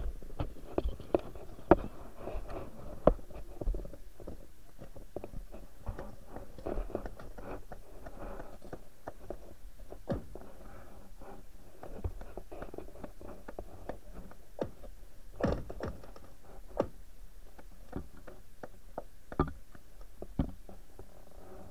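Muffled, irregular clicks and taps over a low rumble, with a few louder knocks, as heard by a camera submerged under lake ice.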